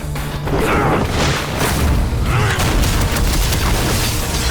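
Fight sound effects from an animated action scene: repeated heavy booms and impacts with sweeping whooshes, over background music.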